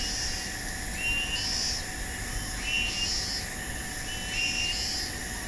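A bird calling in the background: a short high call repeating about every second and a half, over a steady hum and hiss.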